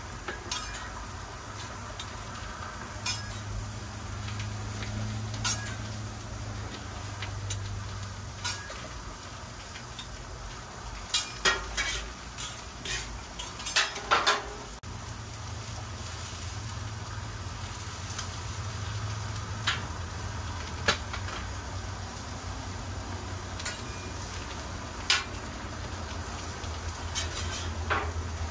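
Onions, zucchini and mushrooms sizzling steadily on a hot Blackstone flat-top griddle. A metal spatula and fork click and scrape against the steel surface now and then, with a quick run of clatter about halfway through.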